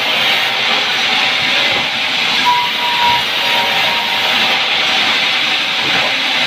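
Sawmill band saw cutting lengthwise through a timber plank: a steady, loud rasping noise of the blade in the wood, with a faint thin whine that comes and goes.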